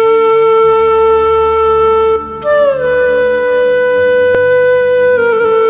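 Background music led by a wind instrument: one long held note breaks off about two seconds in, then a new note slides down and holds, stepping lower again near the end.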